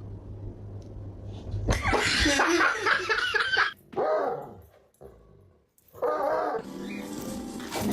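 A dog vocalizing in drawn-out, wavering calls, three times with short pauses between them.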